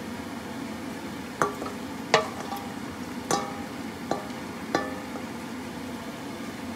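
Snow peas frying in a metal pan with a steady sizzle while they are stirred. Five sharp metallic clinks against the pan each ring briefly.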